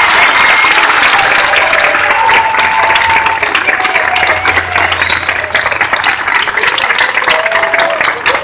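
Audience applauding loudly, with a few voices calling out over the clapping; the clapping eases off slightly in the second half.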